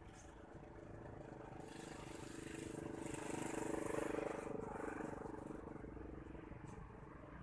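A motorbike engine passing by, growing louder to a peak about four seconds in and then fading away.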